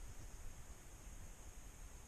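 Faint steady hiss with a low rumble underneath and no distinct sound event: background noise.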